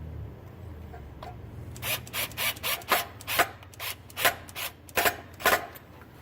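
A quick run of about a dozen short scraping rubs, irregularly spaced: parts being worked against each other while the switch is fitted into the edger's switch housing.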